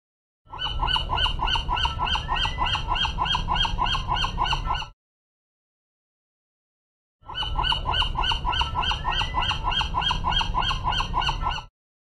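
Gull giving a fast run of short, repeated calls, about four a second. There are two bursts of about four and a half seconds each, with a two-second gap between them, and the second burst is the same run played again.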